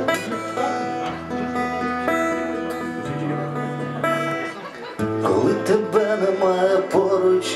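Acoustic-electric guitar playing a song's intro through a stage PA, sustained chords changing every second or so, growing louder and busier about five seconds in.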